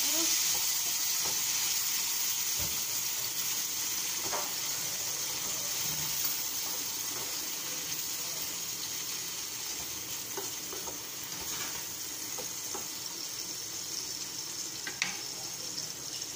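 Chopped tomato, onion and garlic sizzling in hot oil in a frying pan, stirred with a spatula at first: a steady hiss with a few scattered small pops, slowly getting quieter.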